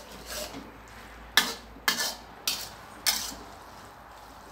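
Metal spatula scraping and clanking against a metal wok as noodles are stir-fried, about five sharp strokes roughly half a second apart, over a faint frying sizzle.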